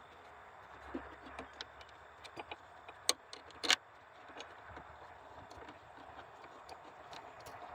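Scattered light clicks and metallic clinks of hand tools and small parts being handled during work on a car engine's wiring harness, with two sharper clinks about three and three and a half seconds in.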